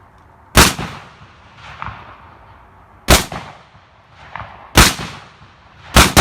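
Four rifle shots at a Tannerite target, each a sharp crack with a fainter report about a second later. The target is giving only weak pops or none at all, a poor batch of Tannerite.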